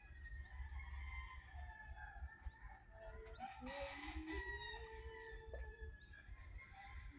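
A rooster crows once, faintly: one long call starting about three seconds in that rises in steps and then holds. Small birds chirp repeatedly throughout.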